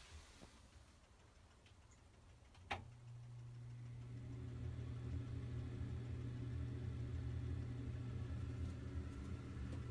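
A switch clicks about three seconds in and the Broan can-light exhaust fan starts up, its motor hum building over a couple of seconds to a steady low hum with a fainter higher whir.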